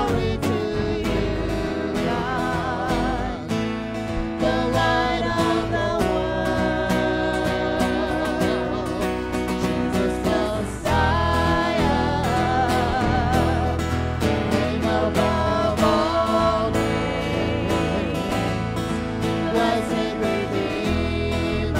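Live gospel worship song: a man and a woman singing together into microphones, their voices wavering with vibrato, over acoustic and electric guitar accompaniment.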